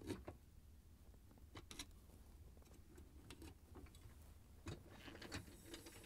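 Near silence with faint, scattered clicks and light scrapes of plastic on metal: the dishwasher upper rack track's rear stop being worked off with a flat-blade screwdriver and the track sliding out along its tub wheel rollers.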